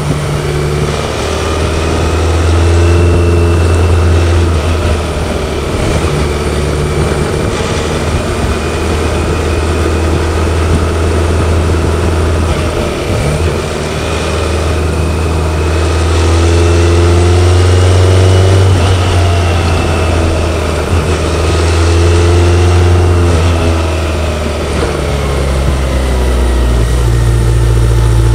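BMW K1100LT's inline four-cylinder engine heard from the rider's seat under way, the engine note dipping and climbing again several times as revs change through the bends, over steady wind rush. A thin high whine rises and falls with the revs.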